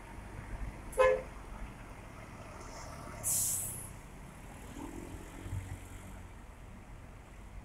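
Intercity bus pulling away with its engine rumbling low, a short horn toot about a second in, and a sharp burst of air hiss from its brakes a little after three seconds.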